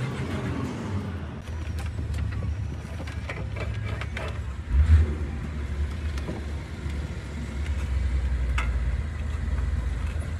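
A motor vehicle engine idling, a steady low rumble, with a louder low thump about five seconds in. Scattered light clicks and knocks come from hands working the wiring and fuse box behind a truck's dashboard.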